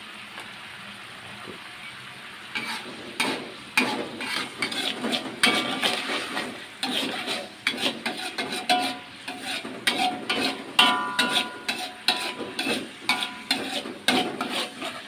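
A spatula stirring sambal in a metal pan, repeatedly scraping and clinking against the pan, over the simmering sizzle of the coconut-milk sauce. The stirring starts a couple of seconds in.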